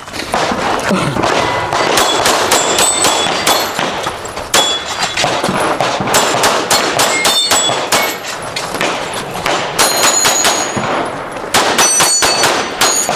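Rapid pistol fire during a timed stage, with steel plate targets ringing as they are hit. There is a brief lull about eight seconds in before the shooting picks up again.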